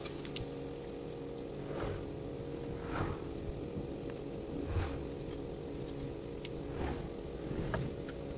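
Plastic model pieces clicking now and then, five or so light clicks, over a steady low hum.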